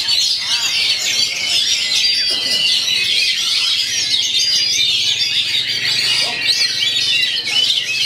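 Dense, unbroken overlapping song of many caged songbirds, quick chirps, trills and whistled notes, with oriental magpie-robins (kacer) among the singers.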